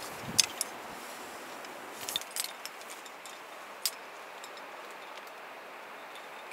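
Scattered light metallic clinks of climbing hardware, carabiners and belay gear on a harness, as the rope is handled, over a steady faint hiss. The clicks cluster in the first two and a half seconds, with one sharper click about four seconds in.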